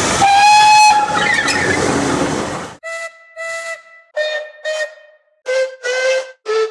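Steam locomotive whistle: a blast of about a second over hissing steam and running-train noise. Then a string of short separate toots in pairs, each pair a step lower in pitch than the last.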